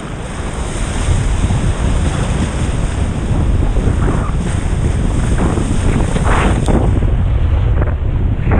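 Strong wind buffeting the microphone over the rush of sea water, as heard from a kitesurfer riding across the waves. A few brief hissing bursts come in the second half.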